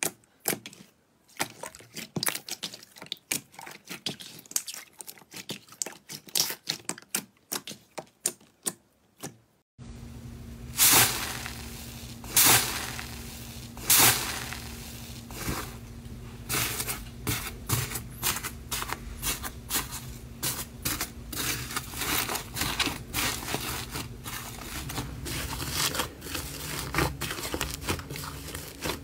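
Hands pressing and kneading glossy slime, making quick wet clicks, pops and squelches. About ten seconds in, the sound changes to foam-bead slime (floam) being squeezed in a bowl, with louder crackling pops over a faint steady hum.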